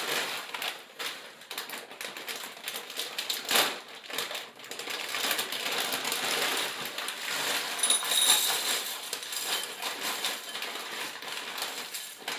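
Plastic cereal bag being handled and opened, crinkling and rustling with many sharp clicks.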